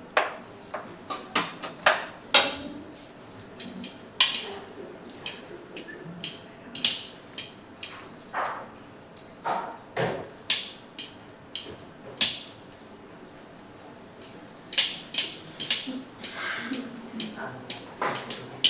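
Fork mashing cooked black beans in a plastic mixing bowl: a run of irregular sharp taps and scrapes as the fork strikes the bowl, with a short pause about two-thirds through.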